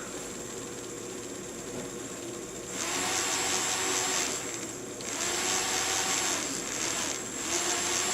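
Small electric motor of a fischertechnik monorail carriage whirring in three spurts: it starts about three seconds in, drops out briefly around five seconds and again just after seven. It runs only while the carriage's contact is pressed onto the ground rail, the sign of a poor rail contact in the wiring.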